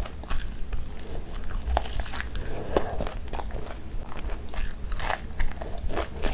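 Close-miked chewing of a mouthful of fried chicken lollipop: irregular crunches and clicks, with a louder crunch about five seconds in.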